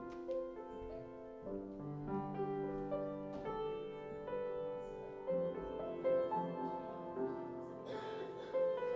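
Slow instrumental keyboard music, sustained chords that change every second or so.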